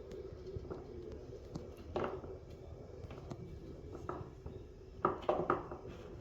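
A few faint clicks and knocks over a steady low hum, with a cluster of knocks about five seconds in.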